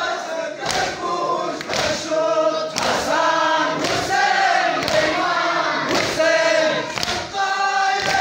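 A crowd of men chanting a Farsi noha (mourning lament) together, with rhythmic chest-beating (matam) thumps about once a second keeping time with the chant.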